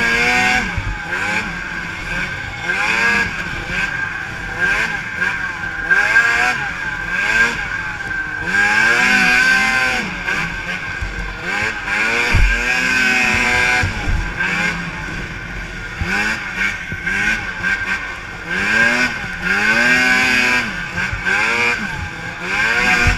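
Racing snowmobile engines revving up and down over and over, several sleds overlapping as they race past.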